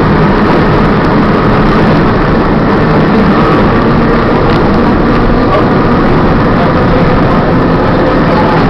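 Inside an electric trolley car running along the track: a loud, steady rumble of the wheels on the rails and the car's running gear.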